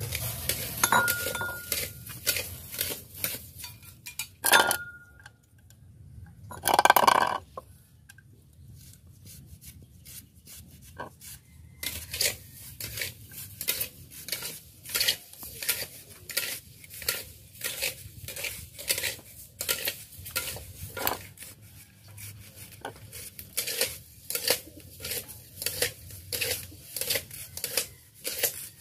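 A utensil stirring and scraping in a pan of dry-roasting rice, in a steady run of strokes about two a second during the second half. Earlier come a sharp ringing clank and a longer, louder clatter of cookware.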